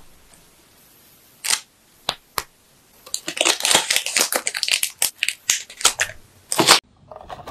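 Clear candy wrappers crinkling as pieces of strawberry-almond nougat are handled and wrapped. A few light clicks come first, then about three seconds in a dense, sharp crackling sets in and runs until near the end.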